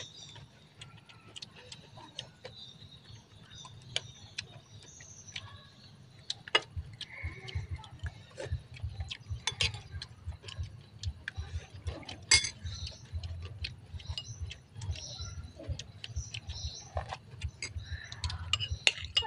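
Metal spoons clinking and scraping against ceramic bowls and plates in irregular sharp clinks, with a low rumble underneath.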